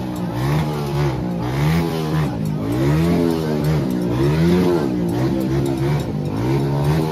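Small motorcycle engines revved over and over, the pitch rising and falling in quick repeated throttle blips.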